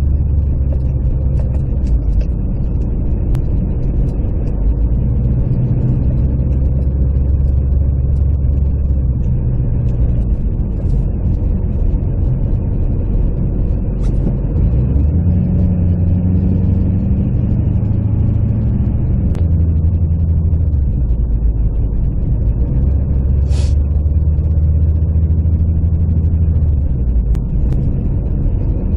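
Duramax turbo-diesel pickup driving, heard from inside the cab: a steady low engine drone whose pitch steps up and down several times as the truck speeds up and slows. A brief high-pitched sound comes about three-quarters of the way through.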